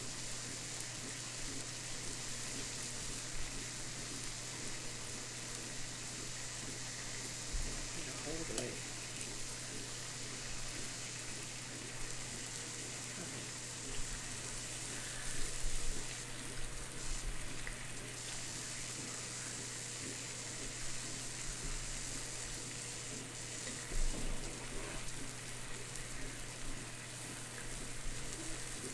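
Meat sizzling on an electric hot pot and grill combo: a steady frying hiss, with a few brief louder noises about halfway through and again near the end.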